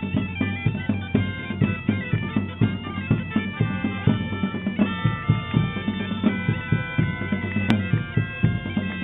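Background music of bagpipes playing a melody over held drone tones, with a steady drum beat underneath.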